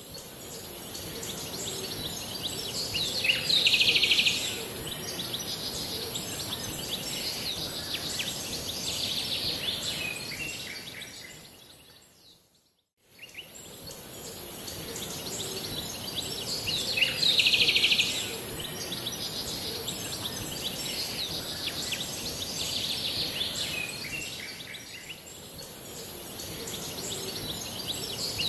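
Nature ambience of birds chirping over a steady high hiss. It is a short loop that fades out and starts again about halfway through, with the loudest chirps a few seconds after each start.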